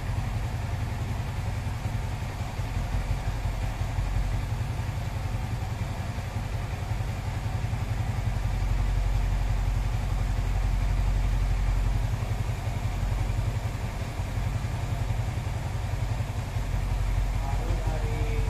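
Motorcycle engine idling steadily, a little louder for a few seconds in the middle.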